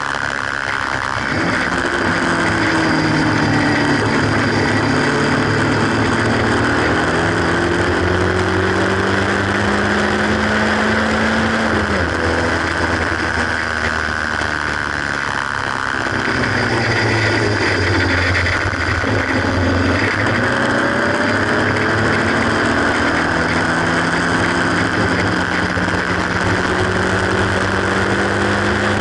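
Haynes Roadster kit car's 1.8-litre engine heard onboard at track speed: the revs climb steadily, drop sharply at an upshift about twelve seconds in, ease off around sixteen seconds, then climb again from about twenty-three seconds to the end. Steady wind and road noise from the open cockpit runs underneath.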